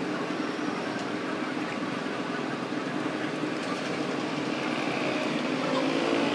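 Steady background vehicle noise that grows louder toward the end.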